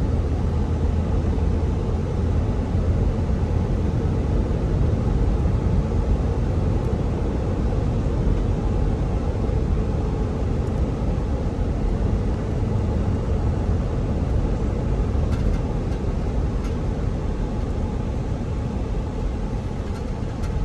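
Steady road and engine noise inside the cabin of a 2008 Toyota 4Runner driving at around 55 mph, easing slightly near the end.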